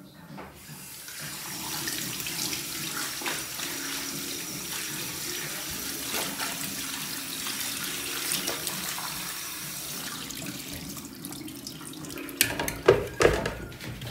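Kitchen tap running into a stainless steel sink, splashing over cut potatoes being rinsed in a plastic salad-spinner basket; the water starts just after the beginning and runs steadily. Near the end a few sharp plastic knocks as the basket is handled and set into its bowl.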